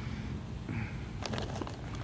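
Blue-striped grunt grunting out of the water, a few short sharp clicking croaks about a second in, over a low steady rumble.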